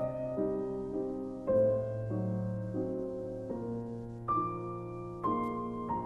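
Slow background piano music, with a new note or chord struck about once a second and left to ring.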